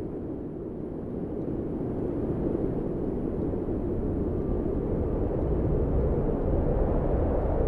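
Wind buffeting the microphone: a low, even rumble with no tones that slowly grows louder.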